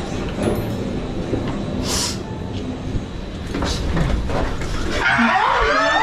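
A steady low rumble with faint voices, then several people suddenly shouting and screaming in fright about five seconds in: a prank scare in a lift.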